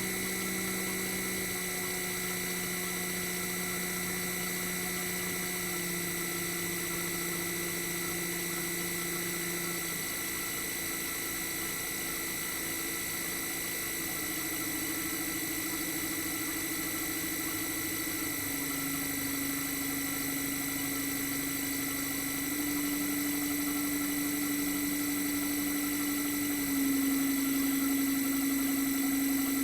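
Toshiba DA91A1F-42F inverter twin rotary compressor running exposed, without its sound-absorbing material, humming in several steady tones. The pitch shifts in steps every few seconds as the inverter changes the compressor's speed, and it grows a little louder near the end.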